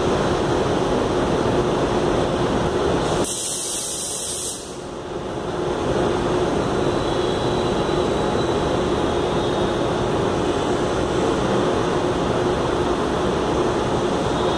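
Steady rumble and hum of a CPTM electric commuter train pulling out of the platform. About three seconds in there is a loud, sharp hiss lasting about a second and a half.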